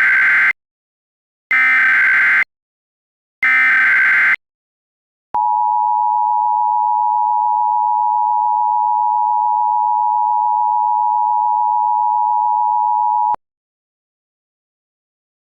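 Emergency Alert System signal: three short bursts of the digital SAME header, a harsh buzzing screech about a second each with a second's gap between, then the steady two-tone EAS attention signal held for about eight seconds and cutting off suddenly.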